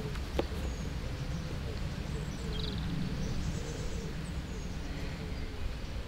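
Outdoor ambience: a steady low rumble with a faint bird chirp about two and a half seconds in and a single soft click just after the start.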